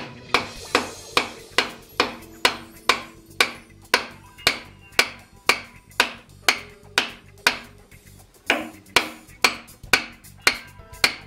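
Hammer blows on a wooden block driving the compound rest off its swivel base, which binds because the base is mashed up from chuck strikes. The blows come at about two and a half a second, sharp and ringing, with a short pause a little after halfway.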